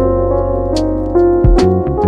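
Background music: piano or keyboard chords over a steady bass, with a regular percussive beat.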